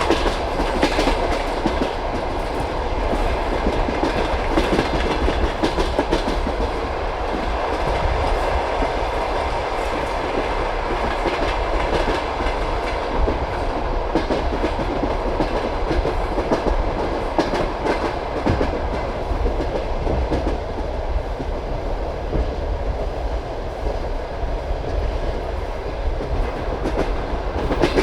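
Passenger train carriage rolling steadily along the track, its wheels clattering over the rail joints, with continuous rolling noise underneath.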